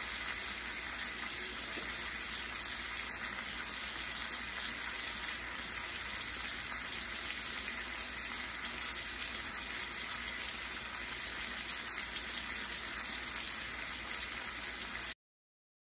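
T-bone steaks topped with butter searing in a large cast-iron skillet: a steady sizzle with faint small pops, cutting off abruptly near the end.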